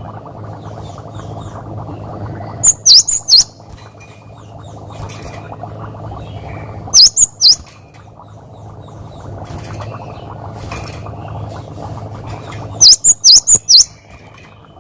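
Gelatik batu (cinereous tit) singing: three short bursts of quick, sharp, high whistled notes, about four seconds apart. Fainter chirps and a steady low hum run underneath.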